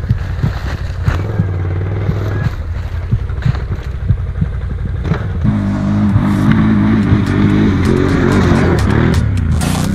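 ATV engines running under load as the tyres churn through leaf litter and mud, with knocks and clatter from debris; at first a low, uneven rumble from a Can-Am Renegade quad's V-twin, then about halfway in a louder, higher-revving engine note takes over.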